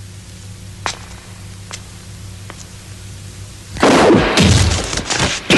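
Film soundtrack: a low steady hum with three faint sharp clicks about a second apart, then about four seconds in a sudden loud blast of noise, a fight sound effect as the blurred figures rush past.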